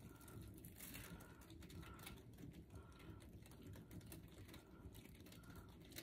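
Faint ticking and a short squeak about once a second from a paint spinner turning a freshly poured acrylic canvas.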